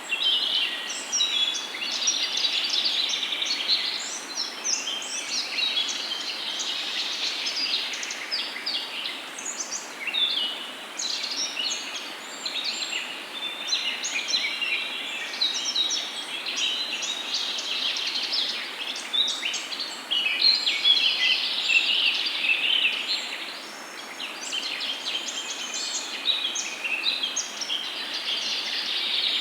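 Many small birds chirping and singing at once, a dense, continuous chorus of short high-pitched calls and trills over a steady background hiss.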